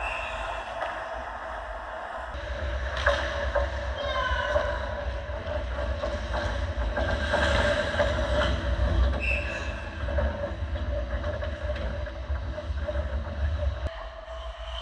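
Ice hockey play at close range: skate blades scraping and carving on the ice, with a few sharp stick-and-puck knocks, over a steady hum and low rumble of the rink.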